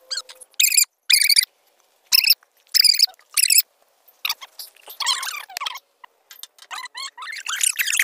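Short rasping strokes, about one every half second, as powder is rubbed through a hand sieve. About four seconds in they give way to the denser squishing and rustling of a hand mixing a crumbly minced mutton mixture.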